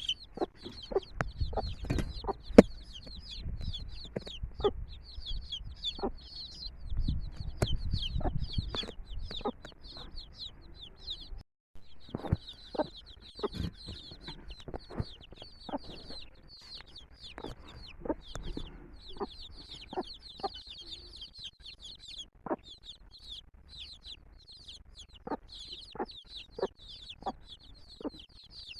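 A brood of domestic chicks peeping constantly in quick high chirps, with a hen clucking in short sharp calls among them. The sound cuts out for a moment about eleven seconds in.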